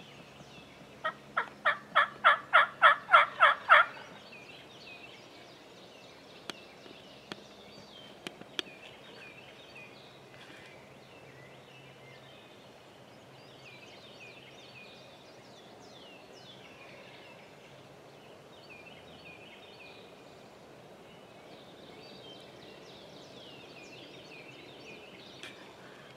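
A run of about a dozen loud wild turkey yelps, about three a second, each a little louder than the last, starting about a second in and ending near the four-second mark. After it come only faint, scattered songbird chirps.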